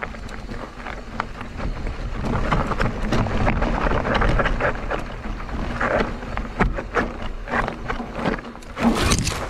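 Mondraker Crafty Carbon electric mountain bike riding over a rough trail: tyre noise on dirt and stones with a steady run of rattles, clicks and knocks from the bike, louder from about two seconds in.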